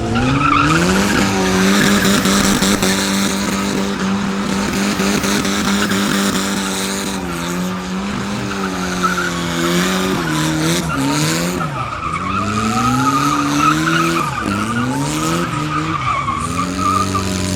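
Car doing a burnout: the engine is held at high revs for several seconds, then revved down and back up again and again, over the screech of the rear tyres spinning on the pavement.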